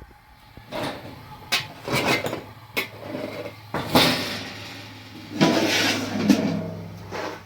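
A series of sharp knocks and clatters mixed with longer scraping, rustling handling noises.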